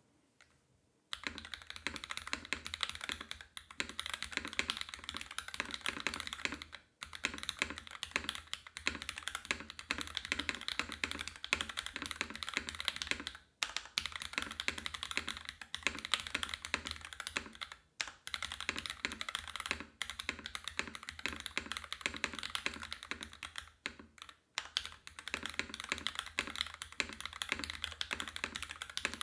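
Continuous typing on a dnworks.co DNDD custom mechanical keyboard with Krytox 205g0-lubed Cherry MX Black Ultraglide linear switches, a carbon fibre plate and GMK keycaps. Fast, dense keystrokes start about a second in and stop briefly a few times.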